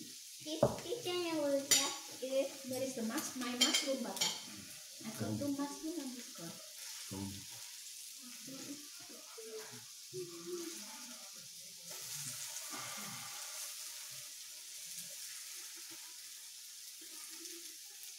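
Meat sizzling on the hot top plate of a tabletop raclette grill, a steady high hiss. There are a few sharp clicks as tongs and chopsticks turn the pieces on the plate.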